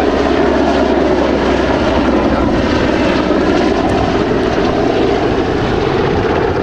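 Italian Navy SH-101A (AgustaWestland AW101) helicopter flying past: a steady, loud rumble of its main rotor and turbine engines.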